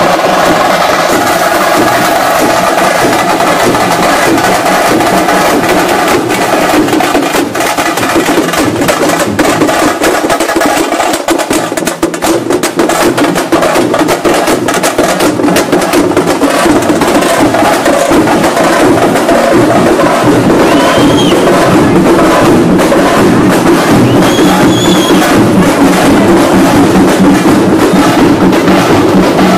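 A street procession band of drummers beating large drums with sticks in a fast, loud, dense rhythm.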